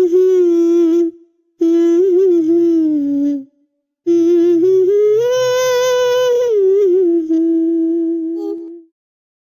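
A single high voice humming a song's melody without words, in three phrases. The last phrase is long: it rises, holds, and drops back before fading out near the end.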